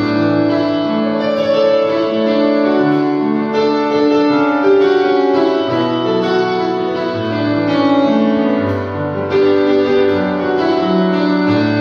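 Yamaha electronic keyboard played: a melody of held notes over sustained chords and a moving bass line, the notes changing about once a second.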